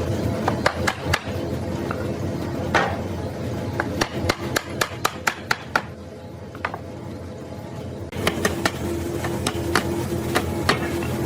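Hammer tapping on wood: a series of sharp knocks, with a quick run of about four blows a second in the middle and more taps near the end.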